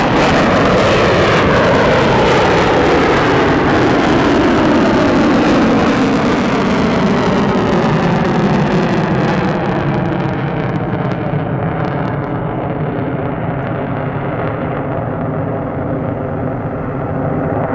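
Eurofighter Typhoon's twin EJ200 jet engines in full afterburner as it climbs steeply away after take-off: a loud, broad jet rumble with a falling, phasing whoosh. The rumble slowly fades, and its high hiss drops away from about ten seconds in.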